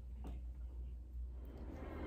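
Quiet room tone: a low steady hum with faint hiss and a single faint click about a quarter second in.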